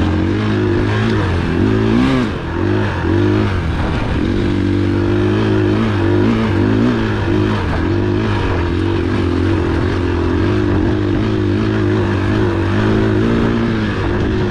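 Dirt bike's single-cylinder four-stroke engine running at low, fairly steady revs, its pitch wavering up and down a little.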